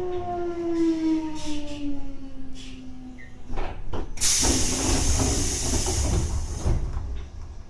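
Odakyu 1000-series electric train's traction equipment whining with a steady tone that drifts down in pitch and fades out about three seconds in, as the train comes to a stop. A couple of knocks follow, then a loud hiss of compressed air lasts about two and a half seconds, typical of the pneumatic brakes or door engines venting.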